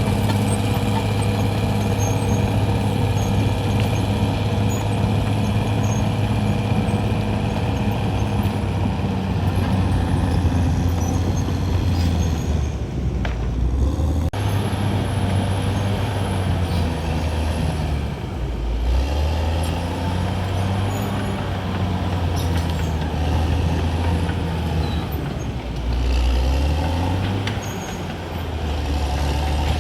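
CAT D6R XL bulldozer's diesel engine running steadily under load, its pitch dipping and then climbing back several times as the load changes.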